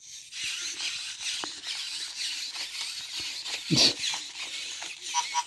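Battery-powered toys running: a steady high-pitched whirring and scratching from small toy motors, with one louder bump about four seconds in and a few short electronic beeps near the end.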